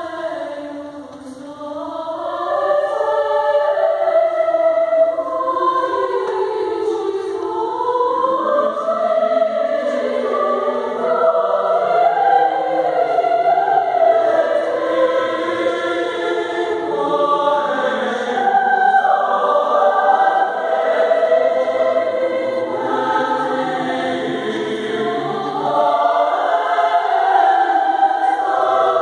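Mixed choir of women's and men's voices singing in parts, holding long chords that move in pitch. It grows softer briefly about a second in, then swells back and stays full.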